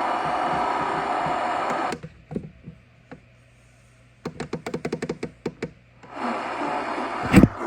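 Radio static hiss that cuts off about two seconds in, followed by a few single clicks and then a quick run of clicks at about ten a second. The static comes back about six seconds in, and a loud thump follows near the end.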